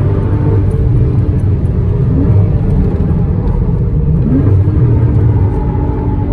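Porsche Cayman S (981) 3.4-litre flat-six engine running under load at speed, its pitch changing with the revs, with short rising sweeps about two seconds and about four seconds in.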